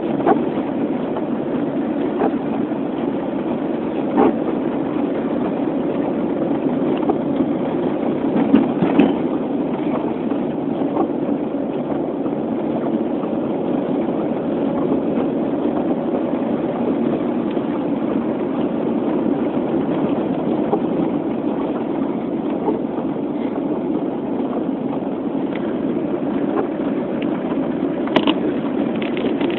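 Steady road and engine noise of a car being driven, heard from inside the cabin, with a few faint ticks.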